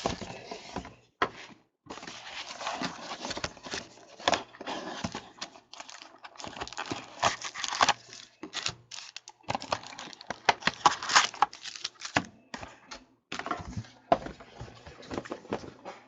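Plastic wrapping being torn and crinkled as a box of trading cards is opened, in irregular rustling spurts with short pauses.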